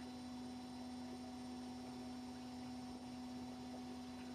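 Steady electrical hum: a constant low tone with fainter, higher steady tones above it and a faint hiss, with nothing else standing out.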